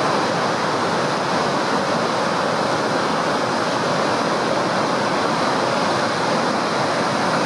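Steady rushing of whitewater from the Spokane River pouring over the Monroe Street Dam and the falls below it, an even noise that does not change.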